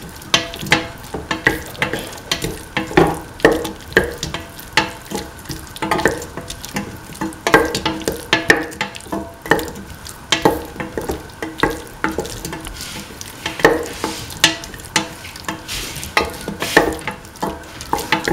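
Spatula scraping and knocking against a metal pan while stirring sautéing tomato pieces, shallots, garlic and green chili, in irregular strokes about one or two a second. Oil sizzles underneath.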